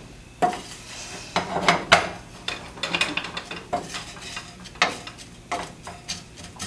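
Dishes and cutlery clattering: irregular clinks and knocks, several a second, as someone works with kitchenware.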